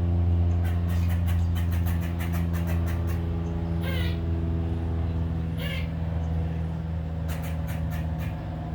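A squirrel chattering in runs of rapid sharp clicks, with two short squeaky calls about four and six seconds in, over a steady low hum.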